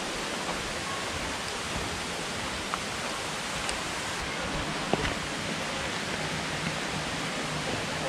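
Steady, even rushing of a waterfall's falling water, with a few faint ticks of footsteps on the trail and a sharper click about five seconds in.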